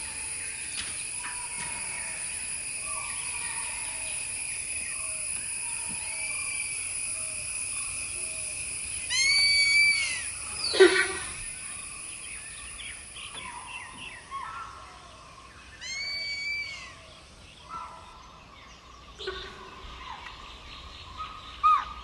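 Forest ambience: a steady high-pitched drone that fades out about fourteen seconds in, with bird calls over it. Two loud arching calls come about nine and sixteen seconds in, a sharp call just before eleven seconds, and a run of soft short notes in the first several seconds.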